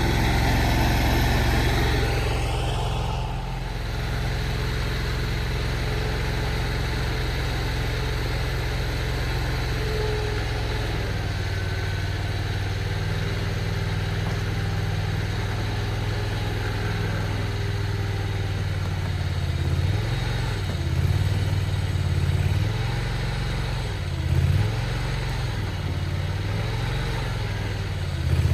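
Mini skid steer engine running steadily as the machine pulls a chained utility pole. Near the end the engine speed rises and falls several times as the load comes on and off.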